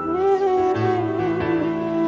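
Instrumental background music: a slow melody of long held notes, with a lower note joining about three-quarters of a second in.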